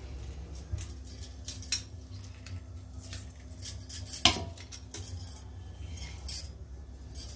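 Hinged metal hand-press lemon squeezer clicking and clinking against a large aluminium pot as lemons are squeezed into it: a string of light metallic clinks, with one louder ringing clank about four seconds in, over a steady low hum.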